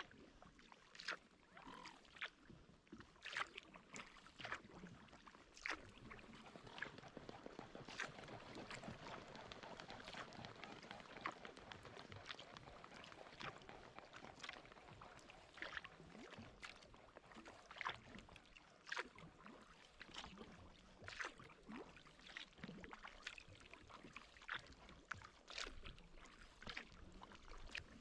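Kayak paddle strokes from a SeaBird Victory HV sea kayak on calm water: faint, irregular small splashes and drips as the blades dip and lift, roughly every second or so.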